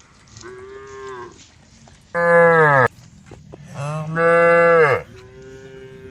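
Cattle mooing: four moos, a fainter one, two loud ones in the middle, and another fainter one near the end, each dropping in pitch as it ends.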